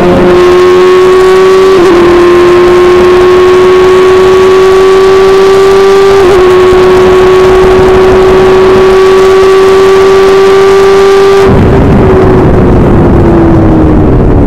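Open-wheel race car's engine at full throttle, very loud from the cockpit, its note climbing steadily with quick gear-change dips about two and six seconds in. A little after eleven seconds the note drops and keeps falling under a broad low rumble as the car comes off the power.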